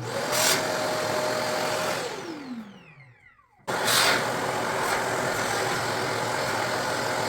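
Shark vacuum cleaner switched on, running for about two seconds, then switched off, its motor whine falling in pitch as it winds down. About a second later it is switched on again and runs steadily.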